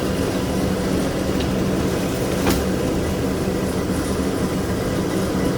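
An engine running steadily at constant speed, with one sharp click about halfway through.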